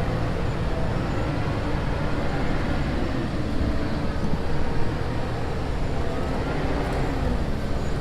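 A vehicle engine running with a steady low rumble, heard with road or traffic noise.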